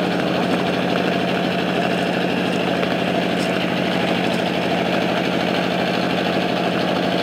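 An engine running steadily at a constant speed, a continuous low hum that does not change.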